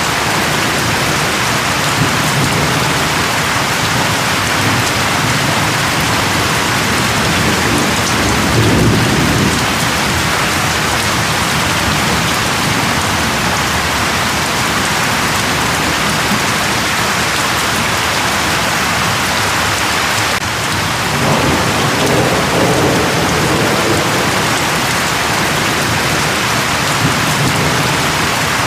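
Steady heavy rain falling, with low rolls of thunder rising about nine seconds in and again a little past the twenty-second mark.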